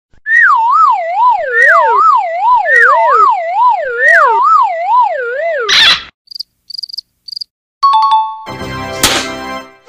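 Cartoon sound effects: a loud warbling whistle tone that wobbles up and down like a siren, in repeated falling sweeps for about five seconds. It ends in a short crash-like burst, then a few quick high beeps, a correct-answer ding and a short noisy flourish near the end.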